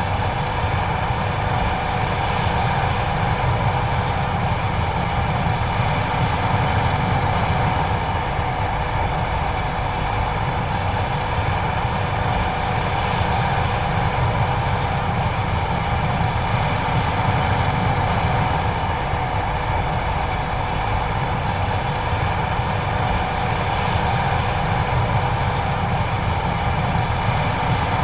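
John Deere 9570STS combine running steadily while harvesting corn: a constant machine drone with a low rumble and steady whining tones over it.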